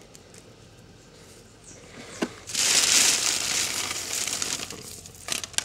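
Thin black plastic bag crinkling and rustling as a hand reaches into it, starting about two and a half seconds in and fading after a couple of seconds.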